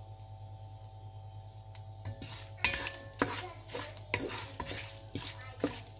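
Whole spices sizzling in hot ghee in a non-stick pot, with a steady hiss and a steady hum underneath. From about two seconds in, a wooden spoon stirs them, scraping and knocking against the pot several times.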